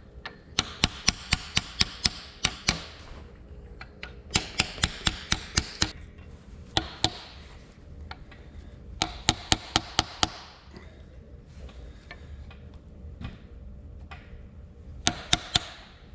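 Hammer tapping a heated wear sleeve onto the end of a tractor engine's crankshaft, in four runs of quick light blows, about four a second, with pauses between.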